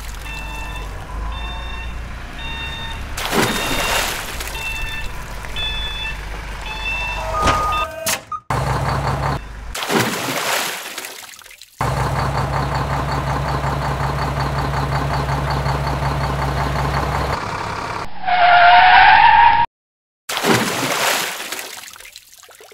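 A string of added sound effects: a beeping electronic tune of short notes, several sweeping whooshes, a steady engine-like drone for about five seconds, and a loud wavering tone a few seconds from the end that cuts off abruptly.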